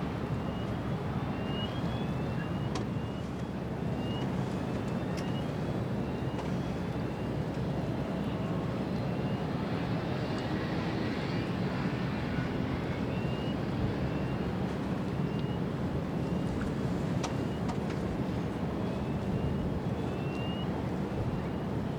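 Steady low engine rumble under a constant background hiss, with short high rising chirps repeating about once a second.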